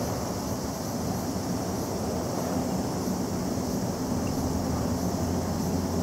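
Steady low background rumble with a faint hiss, with no distinct events standing out.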